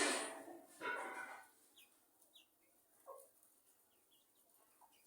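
Chicks peeping, a few short falling chirps scattered over the last few seconds. Two loud noisy bursts of unclear source come first, in the opening second and a half.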